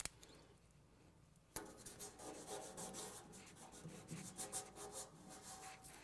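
Fingers rubbing a strip of blue painter's tape down flat onto the table saw's cabinet side: a faint, quick run of rubbing strokes starting about a second and a half in.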